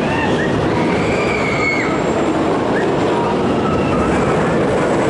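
Steel roller coaster train running along its track with a steady rumble, with a few faint high wheel squeals.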